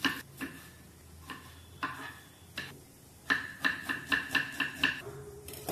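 Kitchen knife chopping onion and tomato, its blade striking with a metallic ring: a few scattered strikes, then a quick run of about seven chops in under two seconds.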